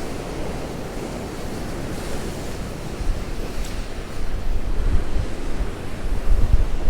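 Rough storm sea with waves surging and breaking, under strong wind buffeting the microphone; the low wind rumble grows louder about halfway through.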